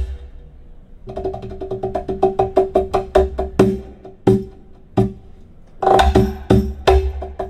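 Recorded percussion music played over large hi-fi loudspeakers: pitched drum strikes, first a quick run of hits, then a few spaced ones, then louder strikes near the end.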